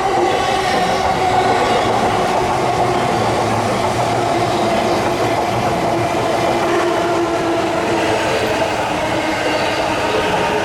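Electric commuter train running through the station: a steady rumble of wheels on rail, with the traction motors' whine held on a couple of steady tones that sink slightly in pitch.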